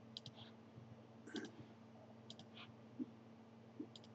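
Faint computer mouse button clicks: about four quick double clicks (press and release) spaced roughly a second apart, with a couple of soft low knocks, over a quiet hum.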